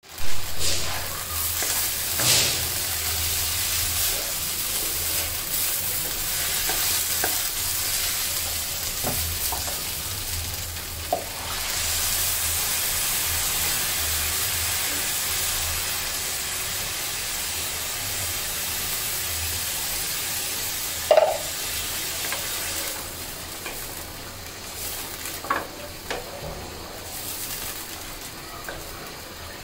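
Rice for polao sizzling as it fries in a nonstick pan, stirred and scraped with a wooden spatula, with scattered knocks of the spatula against the pan. The sizzling quietens over the last several seconds, once water is in the pan.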